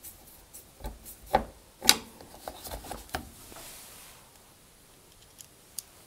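Screwdriver turning a screw back into a tumble dryer's plastic rear cover: a run of scraping clicks and knocks, the loudest about two seconds in, dying away a little after three seconds.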